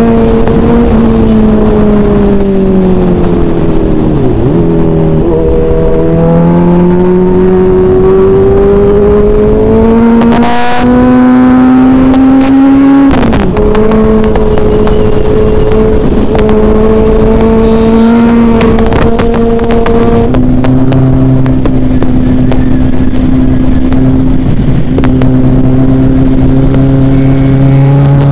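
Kawasaki Z900 inline-four engine heard from the rider's seat under way, with wind noise. The revs dip, then climb steadily for several seconds, drop sharply at a gear change about thirteen seconds in, and hold steady. From about twenty seconds in, a second, lower engine note runs alongside.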